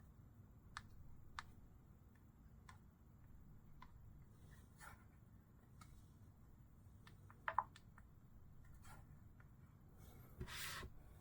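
Faint clicks and taps of a smartphone and its protective case being handled, with a sharper double click about seven and a half seconds in and a brief rustle near the end.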